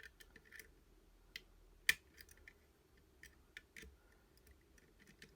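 Small metallic clicks and ticks of a lever pick working the levers inside a five-lever mortice sashlock, with one sharper click about two seconds in.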